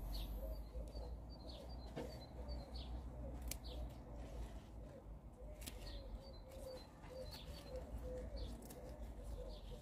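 A pigeon cooing over and over in a steady run of low notes, with small birds chirping high above it and a few faint sharp clicks.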